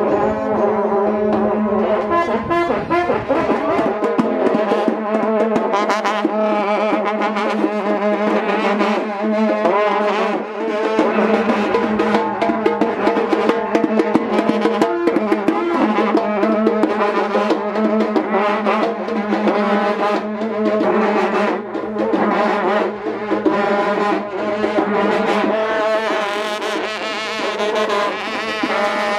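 Several karnays, long brass trumpets, blowing a loud sustained drone, with a melody and drumbeats going on over it as a ceremonial fanfare.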